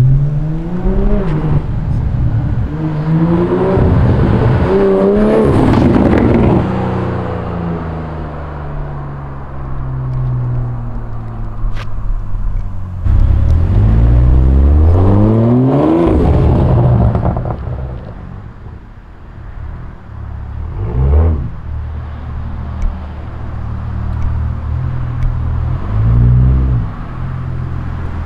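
Straight-piped 2022 BMW 840i's turbocharged three-litre straight-six, loud and raw with no mufflers, accelerating hard with the revs climbing in steps near the start and again about halfway through, a steady drone between. Later it gives two short blips of the throttle.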